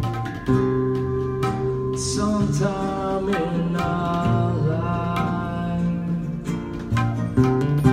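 A live song: a singer's slow melody over a plucked, strummed string accompaniment, with the chords struck about twice a second.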